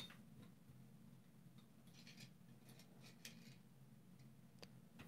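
Faint handling sounds of a diecast toy flatbed tow truck and car: a sharp click at the start as the tilting bed is moved, then soft brief scrapes and a small tick as the toy car is set onto the bed, over a low room hum.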